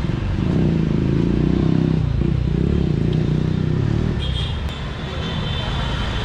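Motor vehicle engine running close by, loud for about the first four seconds and then fading, over steady street traffic noise.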